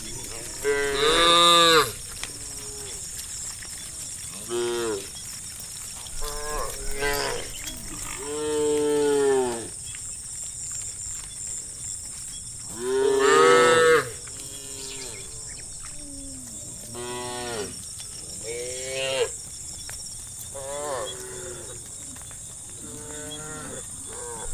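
Cattle mooing, about a dozen calls of different pitch and length, some overlapping. The longest and loudest come about a second in, around eight to nine seconds in, and around thirteen seconds in.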